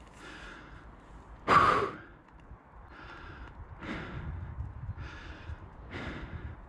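A rider breathing hard and out of breath from strenuous riding: a loud sighing exhale about a second and a half in, then heavy breaths roughly once a second.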